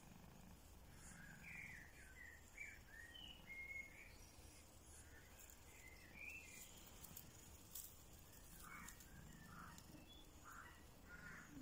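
Near silence, with a scattering of faint, short, high chirps.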